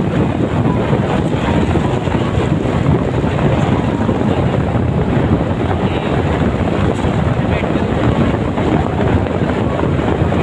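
Wind buffeting a phone's microphone on a moving motorcycle: a steady, loud rumbling rush, mixed with the motorcycle's engine and road noise.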